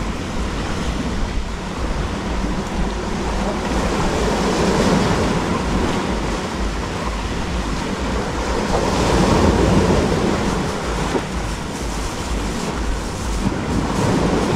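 Sea surf washing on the shore, swelling about four seconds in and again near nine seconds, with wind buffeting the microphone.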